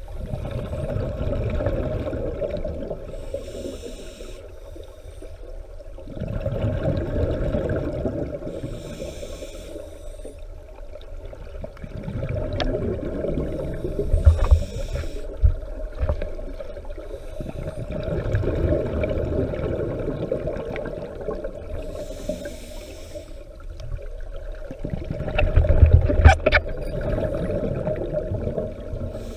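Scuba diver breathing through a regulator underwater: slow breaths several seconds apart, each a short hiss of inhaled air followed by a long rush of exhaled bubbles. A few sharp knocks sound about halfway through, and the loudest comes near the end.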